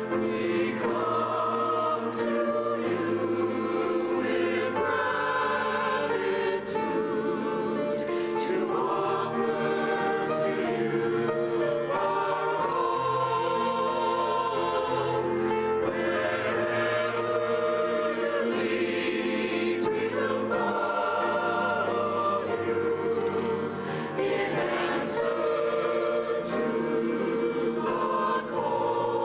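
Church choir singing a sacred anthem, with long held notes.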